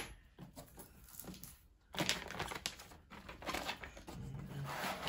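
Cardboard box being unpacked by hand: flaps and cardboard inserts scraping and the plastic cover sheet crinkling. The rustling is faint at first and grows busier about two seconds in.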